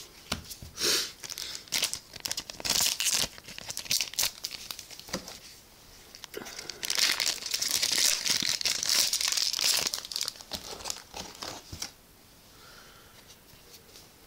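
Foil wrapper of a Cardfight!! Vanguard G Fighters Collection 2015 booster pack crinkling and tearing as it is opened by hand, in short crackles with the longest, loudest stretch about halfway through. It dies down a couple of seconds before the end.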